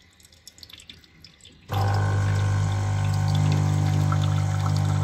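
Espresso machine pump switching on after a second and a half of near quiet and running with a steady low hum. It is pushing hot water through green tea leaves in the portafilter, and the tea streams into a glass pitcher. The extraction is resuming after the leaves were left to bloom.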